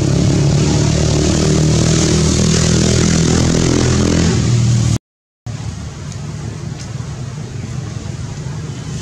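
A motor vehicle engine running steadily and loudly with a slightly wavering pitch. The sound cuts out for about half a second about five seconds in, then a quieter, lower engine hum carries on.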